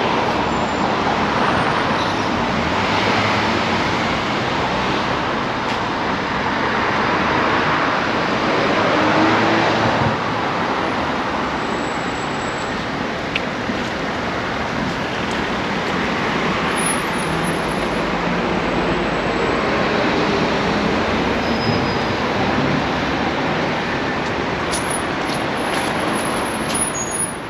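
Street traffic: cars and buses passing in a steady stream, the sound swelling and ebbing as each vehicle goes by.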